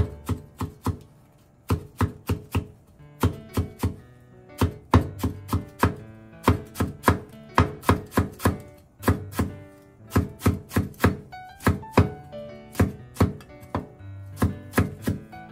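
Chinese cleaver slicing rolled shiso leaves on a wooden cutting board: quick, even knocks of the blade on the board, about three or four a second, in runs with short pauses.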